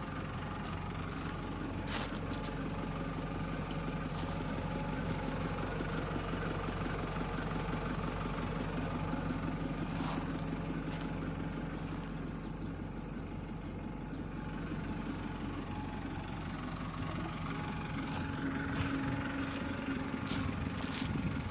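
JCB 3DX Eco backhoe loader's diesel engine running steadily, with a few faint clicks and knocks over it.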